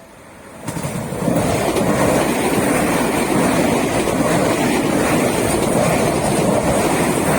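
Seibu Ikebukuro Line train passing close by at the level crossing: the rumble and clatter of wheels on rail rises sharply about a second in and stays loud and steady.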